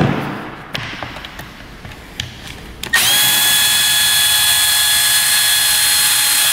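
Milwaukee cordless drill/driver with a number one Phillips bit backing a small screw out of the battery's plastic casing. After a few light handling knocks, the motor spins up about three seconds in, runs with a steady whine for about three and a half seconds, and stops suddenly.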